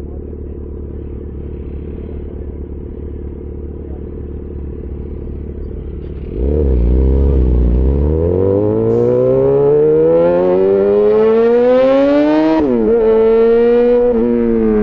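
Yamaha XJ6 S's 600 cc inline-four with an SC-Project aftermarket exhaust idling steadily, then about six seconds in it gets loud as the bike pulls away, the engine note climbing through the revs. It drops sharply at an upshift near the end and then holds and eases off.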